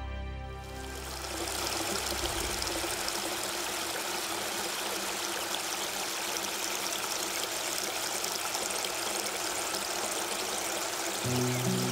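River water rushing steadily over rock cascades. Music fades out at the start and comes back in near the end.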